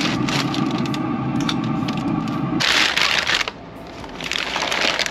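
Stiff butcher paper crinkling and rustling as the paper-wrapped smoked beef ribs are opened, in two crackly stretches in the second half. Under the first half runs a steady low hum, which cuts off abruptly about halfway through.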